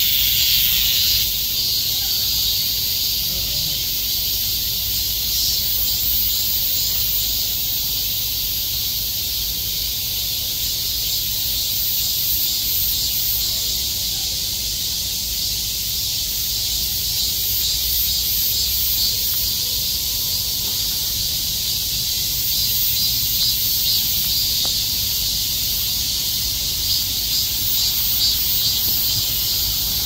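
Chorus of many cicadas calling at once: a loud, steady, high-pitched drone with no breaks.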